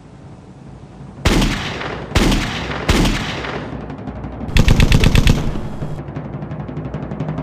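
Gunfire sound effects: three single shots, then a loud, rapid machine-gun burst, trailing off into a fainter rattle.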